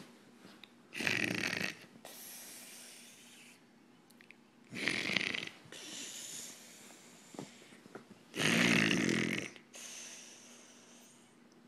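A woman snoring: three loud snores, one about every three and a half to four seconds, each followed by a quieter, hissy breath.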